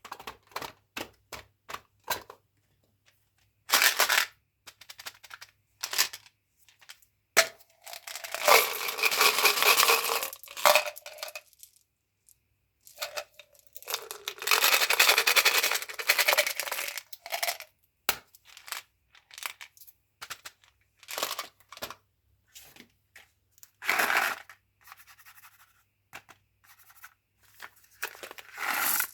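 Chewing gum packaging being handled and torn open: many short taps and clicks, with two long tearing sounds of about three seconds each and a few shorter ones later.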